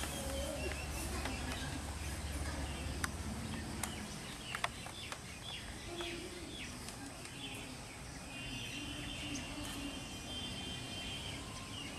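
Faint background ambience: a low hum for the first few seconds, a few scattered clicks, and short high chirps of birds, with a longer chirping trill near the end.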